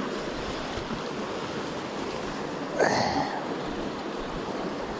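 Steady rush of flowing river water, with one brief louder sound about three seconds in.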